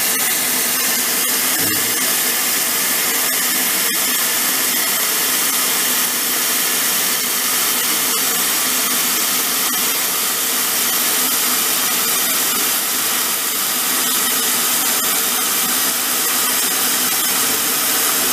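Kitchen tap running steadily into a plastic bowl in a stainless steel sink, the stream landing on a block of dried rice noodles and filling the bowl with water to soak them.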